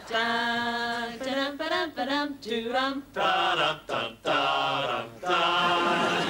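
Unaccompanied singing of a tune without instruments, with long held notes broken by a few short pauses.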